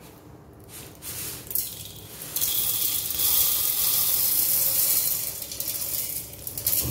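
Roasted whole black urad dal poured into a stainless steel mixer-grinder jar: a steady hissing rattle of dry grains falling onto the metal. It builds about a second in, is fullest from about halfway, and tails off just before the end.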